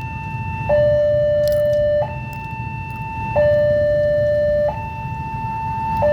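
Railroad level-crossing warning alarm sounding, an electronic two-tone signal that alternates steadily between a lower and a higher pitch about every second and a half, the lower tone louder, over a low rumble: the crossing is warning of an approaching train.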